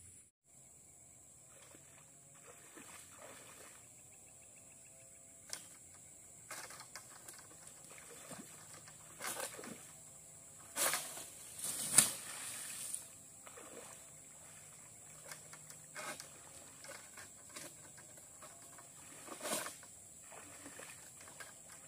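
Floodwater sloshing and splashing around a harvester wading at the foot of an oil palm, with scattered sharp knocks and swishes from his long harvesting pole. The loudest crack and splash come about eleven and twelve seconds in.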